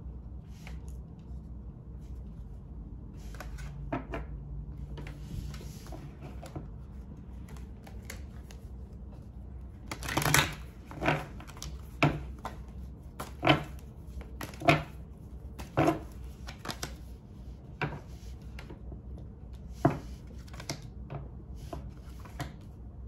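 A deck of tarot cards being shuffled by hand. Soft rustling turns, about ten seconds in, into a run of sharp card slaps roughly once a second, followed by a few scattered slaps.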